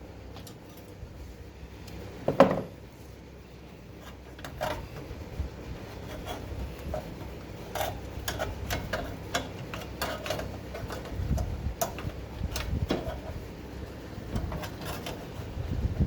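Irregular clicks, taps and light knocks of hands and tools working on the generator's parts, with one sharp, louder knock about two and a half seconds in.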